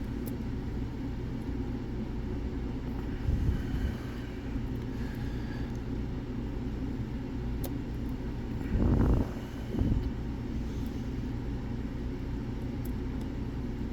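Lock picking on a pin-tumbler lock: a few faint, sharp clicks of the pick working the pins, with brief handling knocks about three and nine seconds in, over a steady low rumble.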